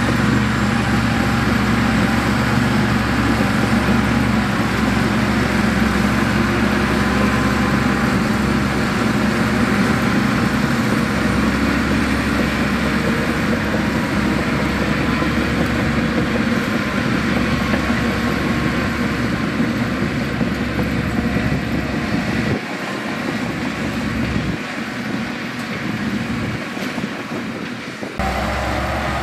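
Heavy construction machinery's diesel engine running steadily under load, with a deep rumble that thins out about three quarters of the way through.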